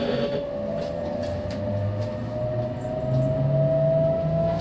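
Meitetsu 3500 series electric train accelerating away from a station: the VVVF inverter and traction motors whine in several tones that rise steadily in pitch as the train gathers speed, with a few light clicks.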